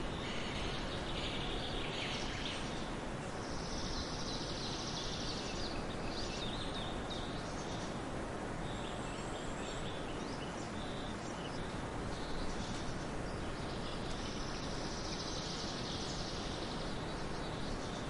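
Steady outdoor nature ambience: an even background hiss with scattered high chirps, and two stretches of dense high buzzing a few seconds long, one about four seconds in and one near the end.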